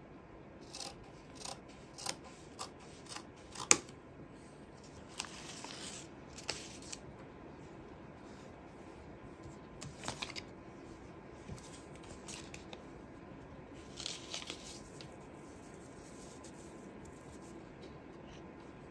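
Scissors and fabric scraps being handled on a wooden table: about six sharp clicks in the first four seconds, the last the loudest, then soft rustling of cloth with a few more clicks.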